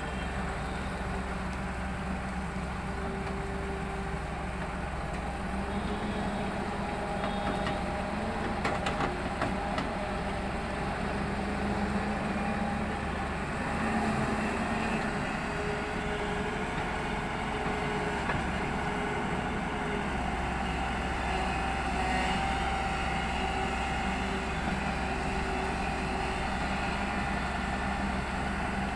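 Hyundai crawler excavator's diesel engine running steadily as the machine digs and swings its boom, swelling slightly about fourteen seconds in.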